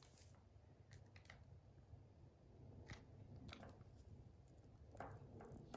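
Near silence, with a few faint, short clicks and rustles of small craft materials being handled.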